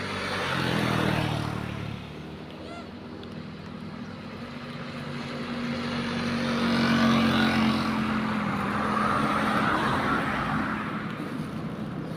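Motor vehicles passing: an engine hum with road hiss that swells about a second in, then again more slowly and longer from around six seconds.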